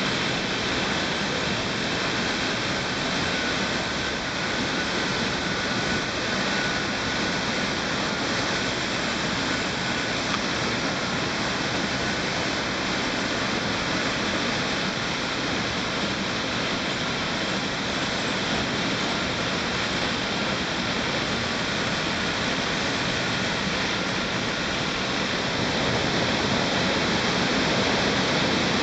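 Steady rushing of a mountain torrent or waterfall echoing in a narrow rock gorge, a little louder near the end.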